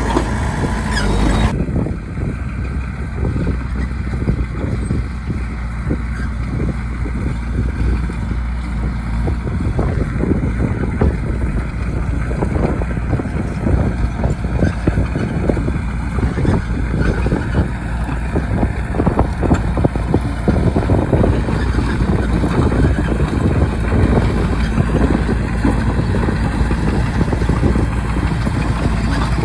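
Bulldozer's diesel engine running steadily under load, with frequent short knocks and rattles over it.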